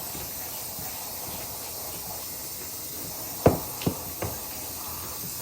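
Running shower water spraying in a steady hiss while a hen is rinsed. Three short knocks come close together about three and a half seconds in.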